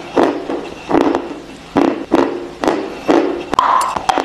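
Dry crunching as a person bites and chews a block of white chalk, the crunches coming in a steady rhythm about twice a second.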